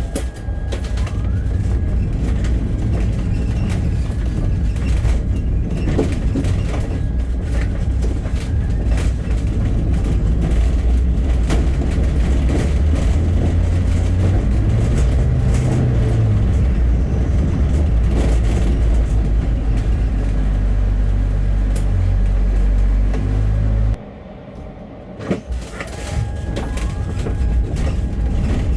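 Bus ride heard from inside the bus: steady low engine and road rumble with scattered rattles and clicks. The rumble drops away suddenly for about a second near the end, then comes back.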